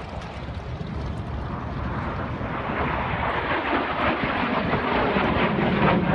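Airplane engine noise at an airshow flyby, a dense rushing sound that grows steadily louder as the plane comes closer.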